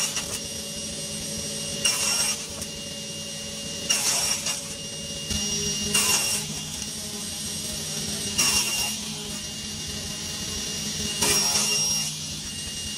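Table saw running steadily with a high whine, as a large crosscut sled carries glued-up wood strips through the blade: five short, louder cutting passes, one about every two to three seconds.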